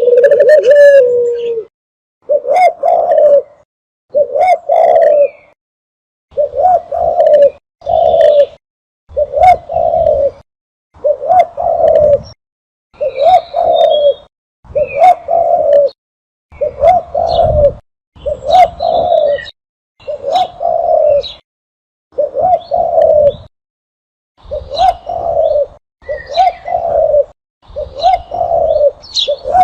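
Recorded dove cooing, played as a hunting lure call: short cooing phrases about a second long, repeating roughly every two seconds with silent gaps between them. Faint higher chirps sound above some of the phrases.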